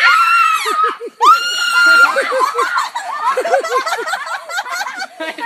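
A girl screaming twice, two long high-pitched screams each held for about a second, followed by quick repeated shrieks and laughter.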